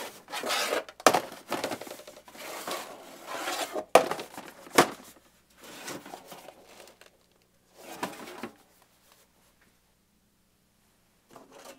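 Stacked metal film cans being slid and lifted by hand: scraping and clattering of the tin cans, with a few sharp knocks in the first five seconds, then lighter handling that dies away about nine seconds in.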